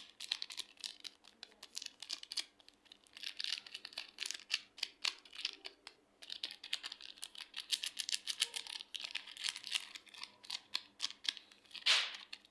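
Clear slime with soft clay mixed in being squeezed and kneaded by hand, giving rapid irregular sticky clicks and crackling pops, with one louder pop near the end.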